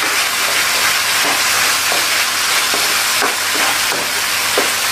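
Fried tofu, green chilies and tauco sauce sizzling steadily in a hot wok while a spatula stirs and scrapes through them, with irregular scraping strokes against the pan.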